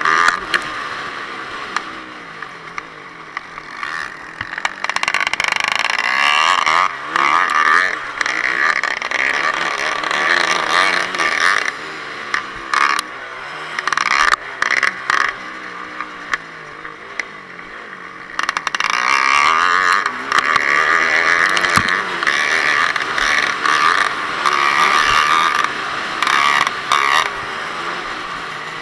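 Onboard sound of a Yamaha WR250F's 250 cc single-cylinder four-stroke engine revving hard and backing off as it is ridden round a dirt motocross track. The throttle closes twice, a few seconds in and again about halfway through. Sharp knocks come from the bike hitting bumps and ruts.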